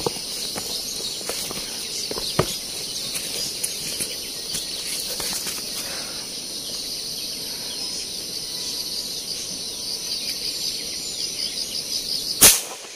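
Insects chirring steadily in the trees, then a single sharp gunshot from a long hunting gun near the end.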